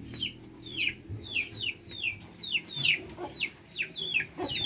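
Young chickens peeping: a steady run of short, high calls, each falling in pitch, about two or three a second.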